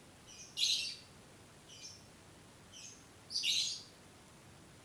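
A bird chirping: two louder calls, about half a second and three and a half seconds in, with fainter short chirps between.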